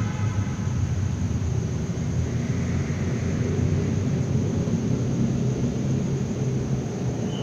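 Steady low rumble, with a constant faint high hiss above it.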